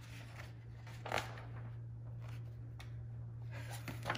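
Faint rustling of paper as a paperback picture book is closed and lowered: a few short brushes and rustles, the loudest about a second in, over a steady low hum.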